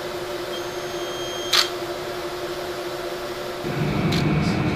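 Steady hum of electronic equipment in an instrument room, with one sharp click about a second and a half in. Near the end the background changes to a louder, lower hum with a thin steady tone and a few more clicks.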